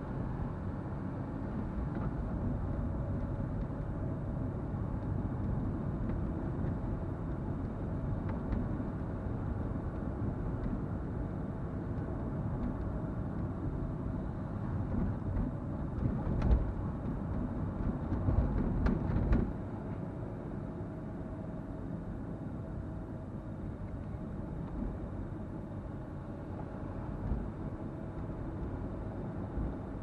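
Car driving through city traffic: a steady low rumble of road and engine noise. About halfway through there is a sharp knock, followed by a couple of seconds of louder, rougher rumbling.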